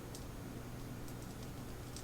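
A few faint, light clicks of a metal shim and follower being worked into a lock cylinder, over a steady low hum.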